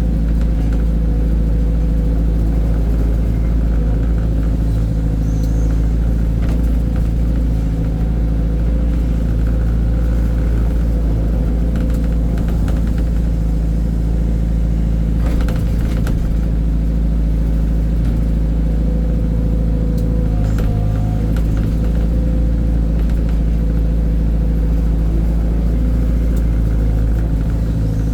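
Heavy diesel engine running steadily at constant speed, a deep hum with a steady drone, and a few faint knocks about midway and again a little later.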